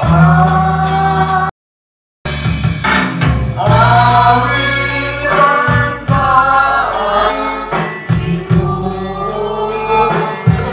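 Men and women singing a hymn together over instrumental accompaniment with a steady beat. The sound cuts out to silence for under a second about one and a half seconds in, then the singing resumes.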